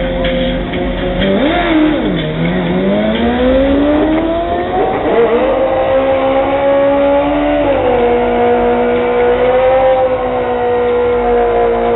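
Drag-racing sportbike engine held at high revs on the start line, then launching. The pitch dips about a second in and climbs steadily for several seconds as the bike accelerates away down the strip, then levels off and steps down.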